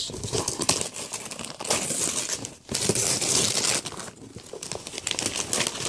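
Wrapping paper being crinkled and torn open by hand, a busy rustling that breaks off briefly twice.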